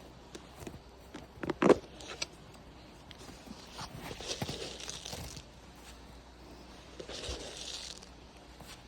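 Rustling and crunching as cracked corn is scattered over snow, with a few sharp clicks about a second and a half in and patches of crunching noise later on.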